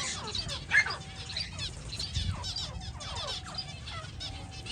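A colony of finches chirping: many short, overlapping, downward-sweeping calls with no real pause, over a low steady background rumble.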